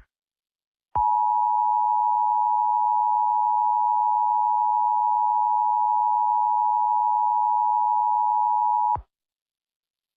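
Emergency Alert System attention signal: a steady two-tone alarm pitched just below 1 kHz (the 853 and 960 Hz pair), starting about a second in and cutting off sharply eight seconds later. It announces that a spoken emergency bulletin follows.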